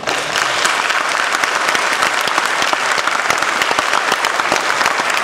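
Church congregation applauding: many hands clapping at once, breaking out suddenly and keeping up at a steady level.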